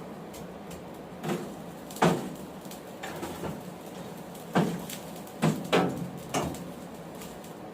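Hammer striking a hot 1080 steel knife blank on the anvil: about six scattered, irregularly spaced metal strikes, each with a short ring, over a steady low background hum.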